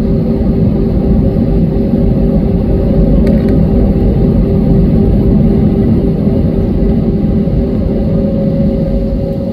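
Steady low rumble and constant hum of a waiting jet airliner's running engines and air systems, heard inside its cabin.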